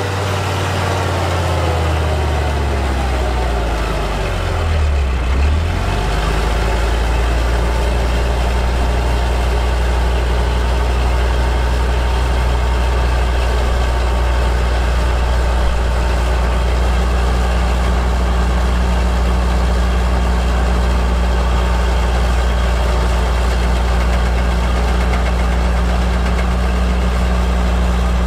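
Diesel engine of a MAN KAT 8x8 military truck crawling up a sandy hill. Its pitch falls over the first few seconds and dips about five seconds in, then holds a steady low drone.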